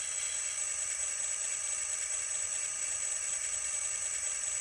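N scale XL Systems sound decoder playing a diesel locomotive prime mover at idle through its tiny onboard speaker: a steady, thin, tinny engine sound with no low end. CV123 has been switched to the alternate prime mover, which sounds like a GE engine.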